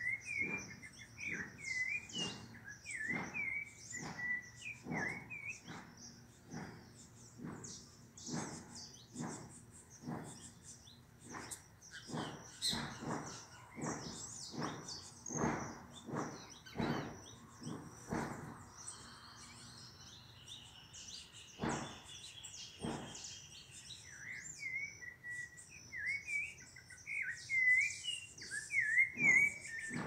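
Black songbirds (pássaros-pretos) calling: a string of short sharp notes, about one or two a second, with wavering whistled phrases at the start and again near the end, and a fast trill about two-thirds of the way through.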